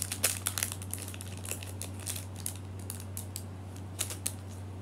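Clear plastic packaging crinkling in short crackles and clicks as a small hair clip is unwrapped and handled. The crackles come thick at first and thin out after a couple of seconds, over a steady low hum.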